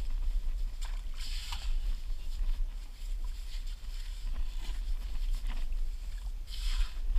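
Short shovel digging into wet, packed sand: a few scraping, crunching strokes of the blade, the clearest about a second in and again near the end, over a steady low rumble.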